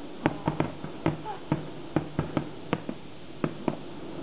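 Fireworks popping: about ten sharp, irregularly spaced bangs that stop a little before the end, over a steady background hiss.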